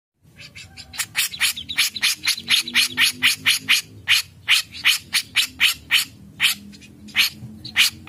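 Grey-cheeked bulbul (cucak jenggot) calling: a quick run of short, sharp, harsh notes, about four a second, that spaces out into single notes in the second half.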